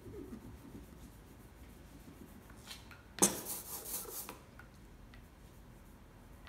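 Rubber brayer rolling black relief-printing ink: a quiet rubbing as it passes over the lino plate, then about three seconds in a louder, sharp-starting hiss lasting about a second while the roller is off the plate, as it is recharged on the glass inking slab.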